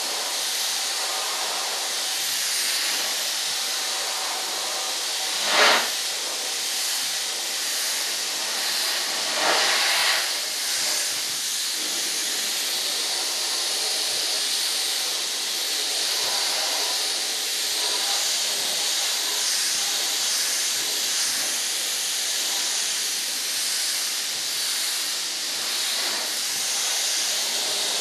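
Paint being sprayed: a steady hiss of air and paint from the sprayer, with two brief louder bursts, one about six seconds in and another about ten seconds in.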